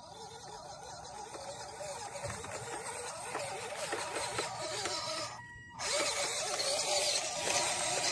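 Small electric motor and gearbox of an RC scale crawler whining, the pitch wavering up and down with throttle as it drives over rough dirt, getting louder as it approaches. The sound cuts out for a moment about five and a half seconds in and comes back louder.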